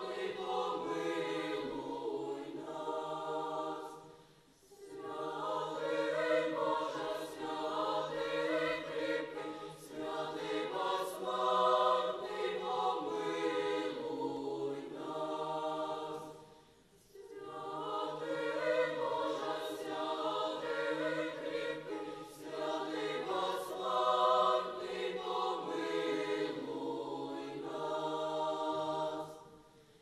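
Children's choir singing, in long phrases with a short pause between them about four seconds in, again past the middle, and near the end.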